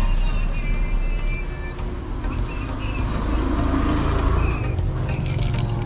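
Steady low rumble, with faint music behind it.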